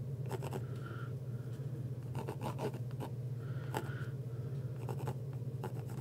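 Pencil scratching across a painted canvas in short, light strokes as a bird's outline is sketched, over a steady low hum.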